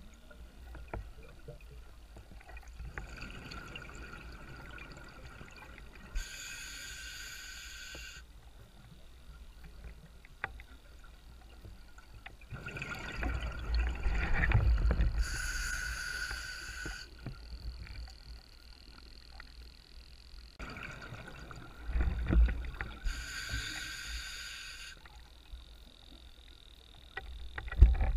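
A scuba diver breathing underwater, heard through a GoPro's housing: three drawn-out hissing inhalations through the regulator, each about two seconds long, alternating with rumbling surges of exhaled bubbles.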